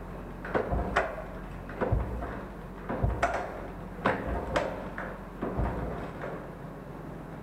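Irregular metallic clanks and knocks, about a dozen, from tools and parts being handled while working on a motorcycle.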